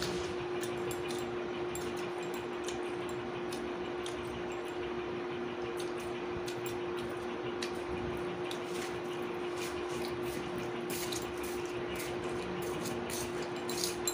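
Close eating sounds: fingers mixing and squishing rice and vegetable curry on a plate, with many small clicks and taps. A steady hum runs underneath.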